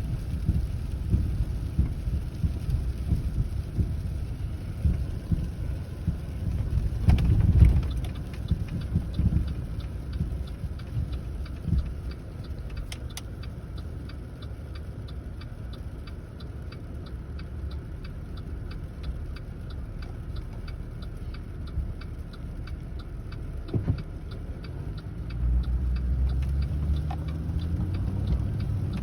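Car cabin on a snowy, icy road: steady tyre and road rumble, with a louder swell about seven seconds in. From about halfway a turn signal ticks at an even pace, and near the end the engine rises in pitch as the car speeds up.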